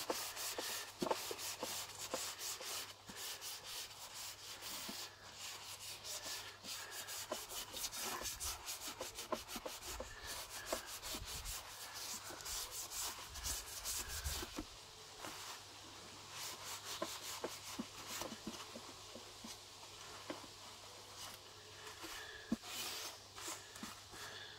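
Paper towel rubbed quickly back and forth over a ridged metal grill plate, a dry scratchy wiping that gets fainter in the second half.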